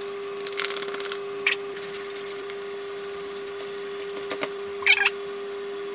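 Flour being poured into a measuring cup and stirred into a plastic mixing bowl with a wooden spoon: scattered scrapes and light knocks over a steady hum.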